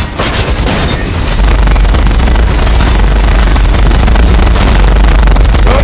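Loud, continuous barrage of gunfire and explosion sound effects, dense and bass-heavy.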